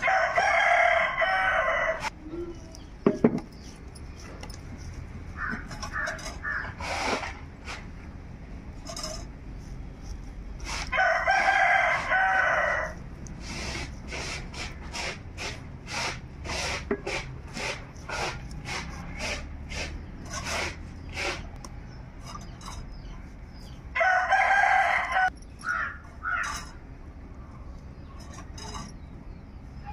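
A rooster crowing three times, each crow about two seconds long: one right at the start, one about eleven seconds in and one about twenty-four seconds in. Between the crows come many short clicks and taps.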